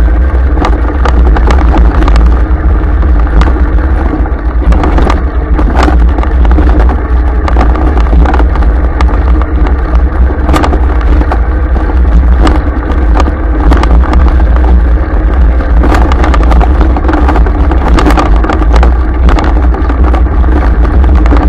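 A vehicle driving along a rough dirt track: a steady, loud engine-and-road rumble, with frequent sharp knocks and rattles as it jolts over the stony surface.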